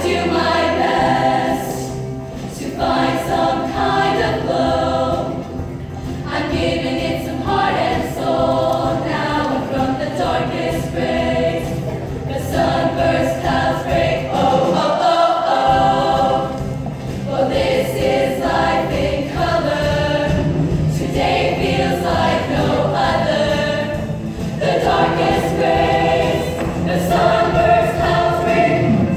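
All-female show choir singing a lively number in phrases of a couple of seconds each, over an instrumental accompaniment with a steady beat.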